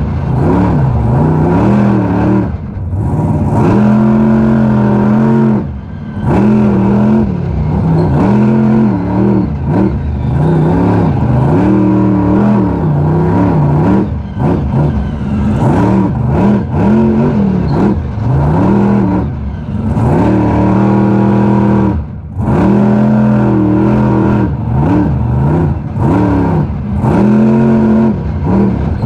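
Monster truck engine revving hard in repeated throttle bursts, its pitch climbing and falling over and over with brief lifts off the throttle, heard from inside the cab.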